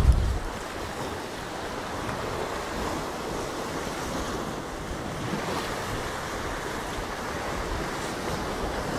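Sea surf washing against the rocks of a shoreline, a steady rushing hiss.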